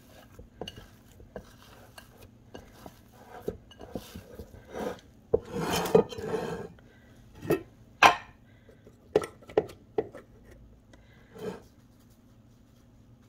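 A metal loaf pan and a glass bowl being handled on a wooden counter: scattered knocks and clinks, with a longer rustling scrape about six seconds in as the parchment-lined pan is shifted.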